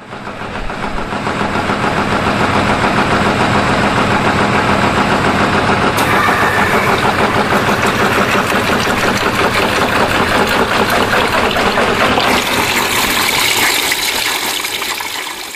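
Household washing machine running: a steady mechanical sound with a fast, even pulse. It fades in at the start, turns hissier in the last few seconds and fades out at the end.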